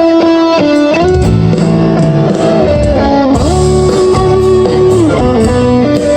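Live rock band playing an instrumental passage: an electric guitar lead of held, sliding notes over bass and a steady drum beat.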